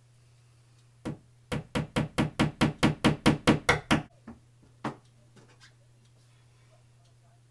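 Hammer driving a nail into a wall: one knock, then a quick, even run of about a dozen strikes at about five a second, then two more single taps.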